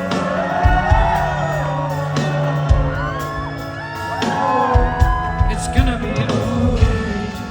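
A pop song with a voice singing over a steady drum beat and a held bass note.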